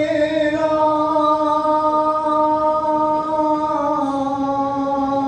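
A man singing a Hindi devotional bhajan, holding one long, steady note.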